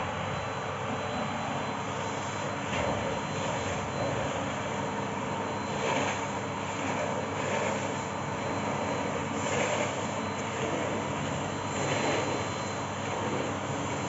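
Bosch BGS21X320 bagless canister vacuum cleaner running steadily, a rushing noise with a thin high whistle over it. The sound swells a little every two or three seconds as the floor nozzle is pushed across the hard floor.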